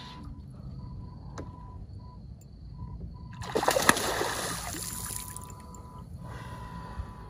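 Hooked king threadfin salmon thrashing at the water surface: a loud splash about three and a half seconds in that lasts a little under two seconds.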